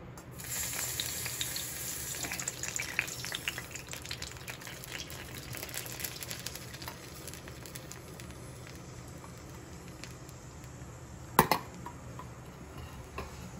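Palm-jaggery syrup poured through a metal strainer into hot sesame oil in an iron kadai, sizzling and crackling with many small pops as it hits the oil, the crackle thinning out over several seconds. One sharp knock near the end.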